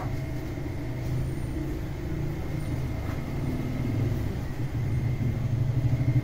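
Bakery conveyor oven running with a steady low rumble, growing a little louder near the end.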